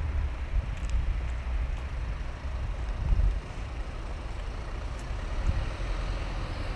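Wind buffeting the camera's microphone: a low, gusting rumble that swells briefly about three seconds in.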